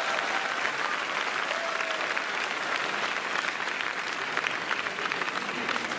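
Spectators in the stands applauding at the end of a badminton rally: many hands clapping at once, steady throughout.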